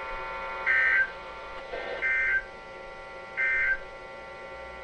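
NOAA Weather Radio's SAME digital end-of-message code, sent to close a weekly test: three short bursts of buzzing two-tone data warble, about 1.4 s apart, over a steady background hum.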